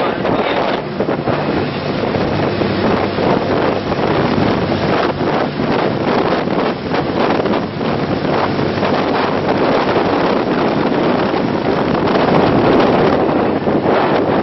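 Strong wind buffeting the microphone aboard a moving tour boat, in uneven gusts, over a low steady drone from the boat's engine and the rush of water.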